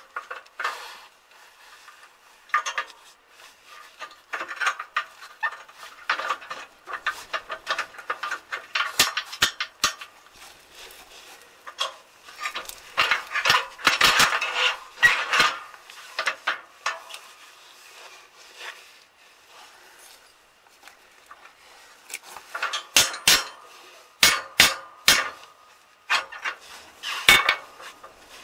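Steel parts of a tractor cultivator clanking and clinking as they are handled and fitted during a repair. A handful of sharp hammer blows on steel come near the end.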